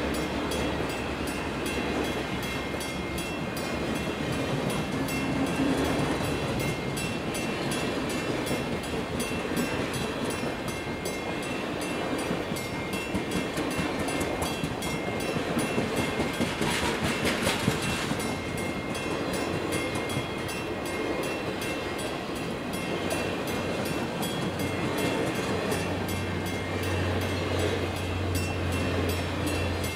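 Circus train's passenger cars rolling steadily through a road grade crossing, wheels running on the rails. A brief burst of noise comes about seventeen seconds in, and a low steady hum sets in near the end.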